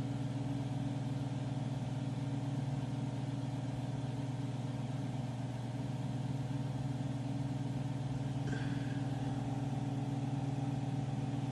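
Metal lathe running, its motor and gearbox giving a steady hum with several steady tones, and a brief higher squeak about eight and a half seconds in.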